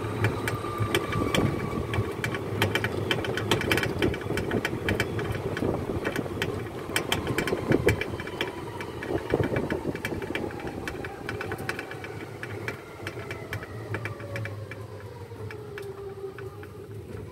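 Electric shuttle cart driving along a concrete path: a thin motor whine that glides in pitch and falls near the end, over a steady rumble, with frequent clicks and rattles from the cart.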